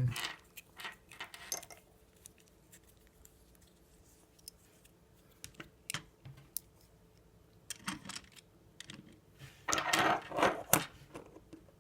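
Scattered clicks and rattles of the plastic parts of a Beyblade Burst string launcher being handled as its pull string is wound back in, with a denser burst of clattering near the end.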